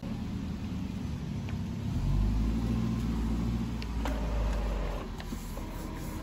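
A motor vehicle engine running close by as a low rumble, getting louder about two seconds in and easing off about five seconds in, with a few light clicks.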